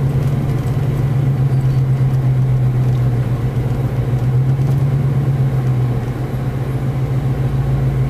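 Steady low drone of a car's engine and tyres on the road, heard from inside the cabin while driving.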